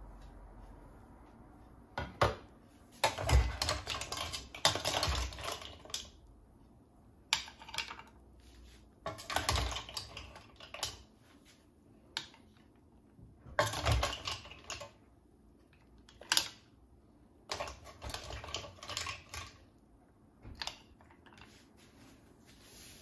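A metal spoon scrapes and clinks in a steel pot while cooked mussels are scooped out, the mussel shells clattering against the spoon and the plate. It comes in four or five rattling bursts.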